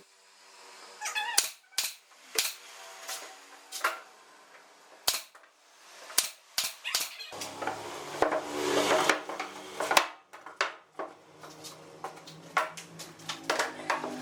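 Sharp, irregular knocks and taps from hand work on wood, with a busier stretch of scraping and knocking about eight to nine seconds in.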